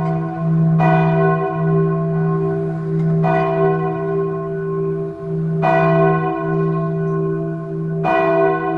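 A church bell tolling slowly, struck roughly every two and a half seconds. Its deep hum rings on between the strokes, and the sound cuts off suddenly at the end.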